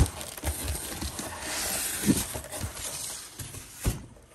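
Cardboard box and packing material being handled: rustling and scraping as a boxed item is lifted out of a shipping carton, with a few dull knocks, one right at the start, one about two seconds in and one near the end.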